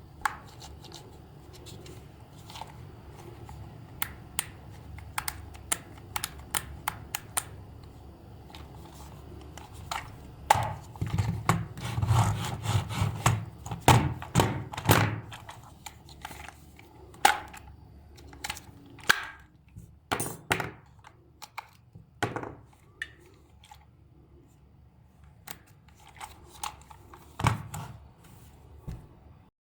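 Hands handling small hard objects: irregular clicks, taps and thunks, busiest in the middle stretch, over a low steady hum that fades out about two-thirds of the way through.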